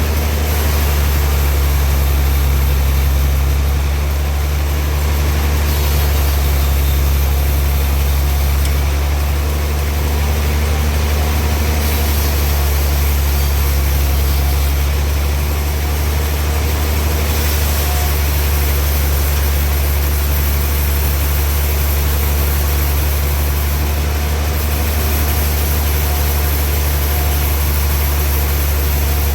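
Sawmill machinery running steadily, with a strong low hum throughout.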